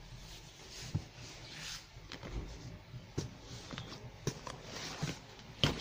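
Folded bed linen and towels being handled in a cardboard box: soft fabric rustling with scattered light taps and knocks, the loudest shortly before the end.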